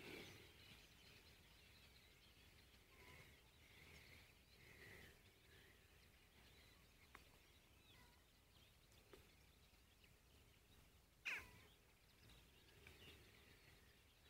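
Near silence with faint, scattered bird calls, and one louder short call about eleven seconds in.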